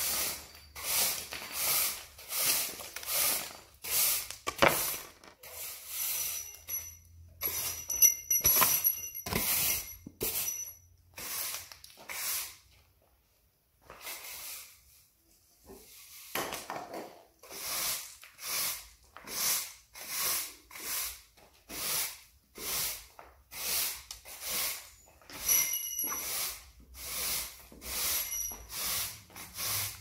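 Push broom with stiff bristles sweeping a bare concrete floor covered in grit and rubble, in quick, even rasping strokes of about two a second. The sweeping stops for a few seconds about halfway, then carries on at the same pace.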